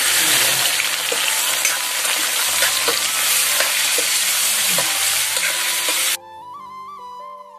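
Fish pieces sizzling loudly in hot oil in a kadhai over a wood fire, uncovered and stirred with a spoon, with a few light clicks of the spoon against the pan. The sizzle stops abruptly about six seconds in, leaving background music with a melody.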